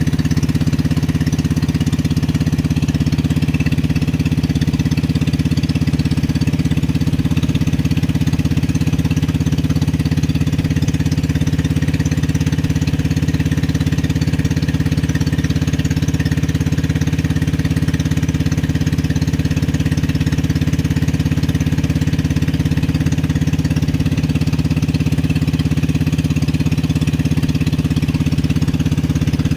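Small boat engine running steadily at a constant speed.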